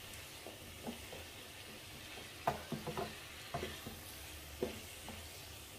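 Cauliflower sizzling in masala in a frying pan while a spatula stirs it: a steady sizzle with scattered scrapes and knocks of the spatula against the pan, a quick cluster of them about two and a half seconds in.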